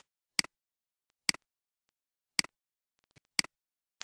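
Computer mouse button clicking four times, about a second apart, each click a quick double tick of press and release.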